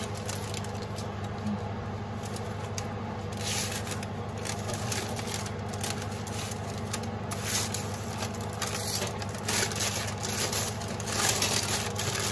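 A spatula scrapes under a crisp sheet of unleavened flatbread while the parchment paper beneath it crinkles and rustles as the bread is flipped on an oven tray. The scrapes and rustles come irregularly from a few seconds in, over a steady low hum.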